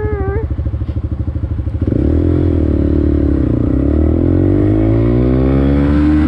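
Honda Grom's 125 cc single-cylinder engine idling with even, steady pulses, then pulling away about two seconds in. The revs rise, sag briefly, and climb again as the bike accelerates, easing off near the end.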